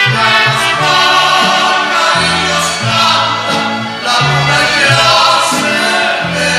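Cumbia music playing loudly, with a bass line stepping from note to note under voices singing together.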